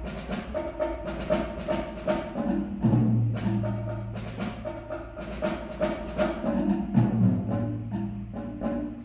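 Percussion quartet playing drums: snare drums, bongos and congas struck in a quick, busy rhythm of tuned drum tones. A deep, ringing low drum note sounds about three seconds in and again about seven seconds in.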